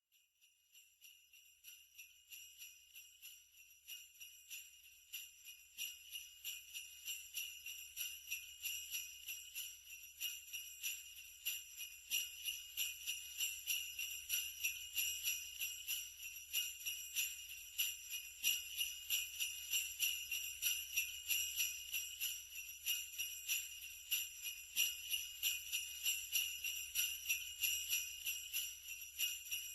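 Sleigh bells jingling, shaken in a steady rhythm of a few shakes a second. They fade in from silence over the first ten seconds or so, then go on at an even level.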